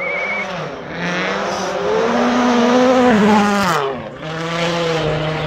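A World Rally Car's engine at full rally pace on a snowy stage, its revs climbing for a few seconds and then dropping sharply about four seconds in as it passes close by, then holding steady. A short trilling whistle sounds at the very start.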